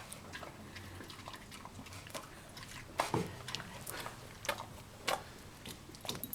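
Dog chewing cooked broccoli: a scatter of irregular short clicks and smacks from its mouth, the loudest about three and five seconds in.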